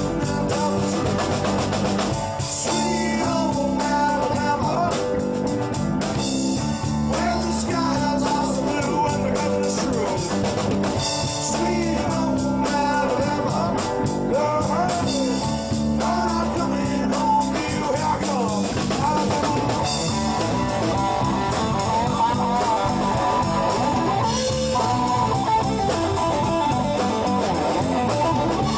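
Rock band playing an instrumental break: a guitar lead line with bending notes over a repeating bass pattern and drums.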